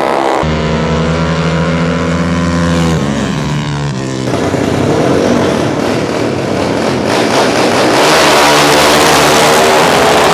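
Drag-racing motorcycle engines at high revs, heard in several short edited cuts. A held high-rev note drops in pitch about three seconds in, then comes rough full-throttle running. The loudest part is near the end, as two bikes race off the line.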